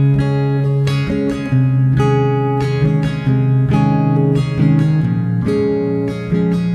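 Background music on acoustic guitar, plucked chords changing every second or so.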